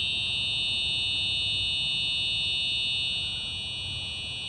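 Simplex fire alarm horns sounding continuously, heard from outside the building: a loud, steady high-pitched tone with no pulsing.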